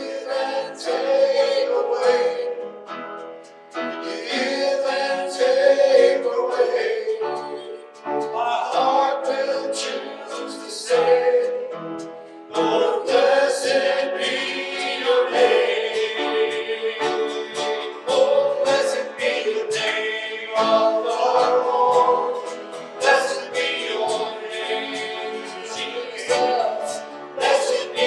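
Worship song: voices singing in phrases a few seconds long over instrumental accompaniment.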